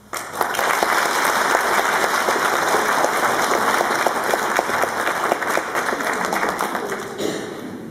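Audience applauding, many hands clapping at once; it starts right away and dies down near the end.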